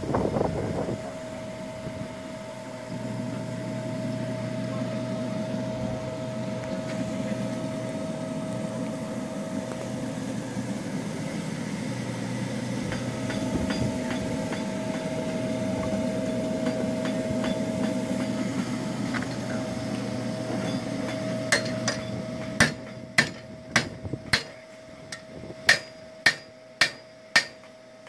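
A steady mechanical hum with a constant whine, then, about three-quarters of the way through, a blacksmith's hammer starts striking hot iron on an anvil, about two ringing blows a second. The whine continues under the hammering.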